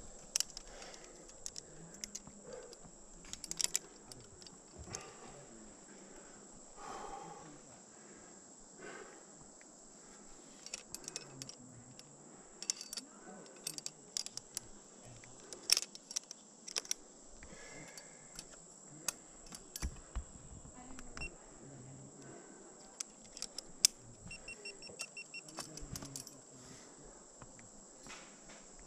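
Metal climbing gear, carabiners and protection, clinking and rattling in scattered sharp clicks as it is handled at the anchor. A short run of high pips comes about 24 seconds in, over a faint steady high tone.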